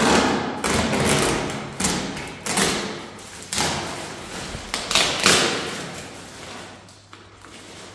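White plastic packaging around a compressed, vacuum-packed rug rustling and crinkling in a series of sudden bursts as it is yanked and pulled open, with a few thuds of the packed roll on the concrete floor; the handling grows quieter in the last couple of seconds.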